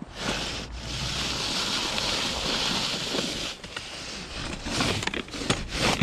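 Snowcaster wheeled snow pusher's plastic blade scraping snow along a concrete sidewalk: one long, even scrape, then several shorter scrapes and knocks near the end.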